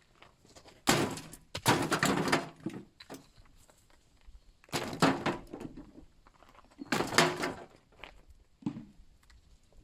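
A series of knocks and scrapes: five irregular bangs a second or two apart, the second and fourth the longest.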